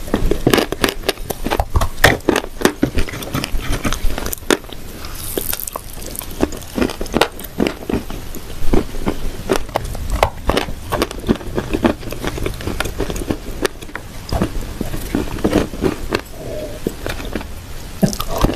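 Close-miked crunching and chewing of dry edible clay, a dense series of sharp crunches and cracks.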